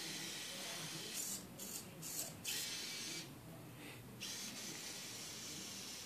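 Faint steady hiss of room tone that drops out briefly several times between about one and four seconds in.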